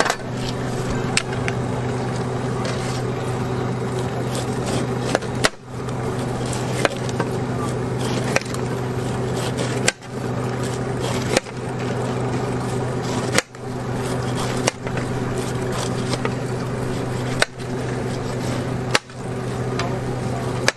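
Steady street-stall background noise with a low hum and faint voices, broken by a sharp knock every second or two.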